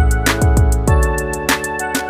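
Background music with a steady beat: a deep kick drum that drops in pitch, quick hi-hat ticks and sustained chords.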